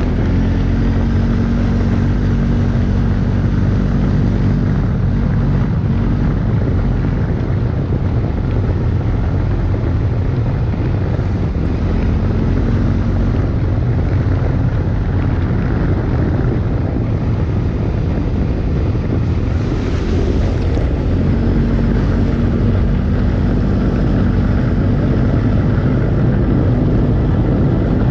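CFMoto CForce 450 S quad's engine running steadily under way on a dirt track, heard from a camera on its front rack, with rumble from the tyres and wind on the microphone.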